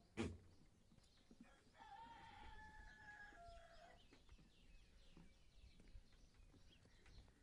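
A single sharp knock just after the start, then a faint rooster crow of about two seconds that holds its pitch and drops at the end.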